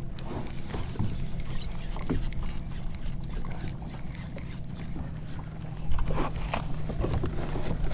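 Sounds of a kayak under way on open water: water noise around the hull over a steady low hum, with short splashy knocks and a louder stretch of splashing noise starting about six seconds in.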